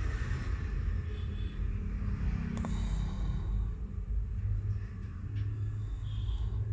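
A steady low background rumble, with a couple of faint light clicks.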